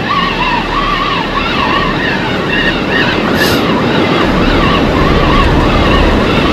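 Background music with a wavering melody line, over a steady rush of surf and wind noise.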